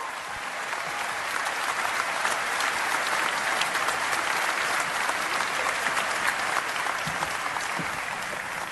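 Audience applauding: a dense, steady patter of many hands clapping, easing slightly near the end.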